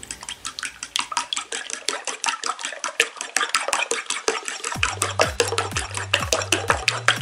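Fork beating raw eggs in a ceramic bowl: a quick, even run of clinks as the tines strike the bowl, about six a second.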